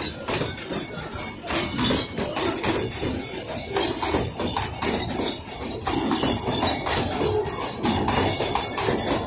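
Puffing Billy's narrow-gauge wooden passenger carriages rolling past, their wheels clattering and knocking irregularly over the rail joints and level crossing.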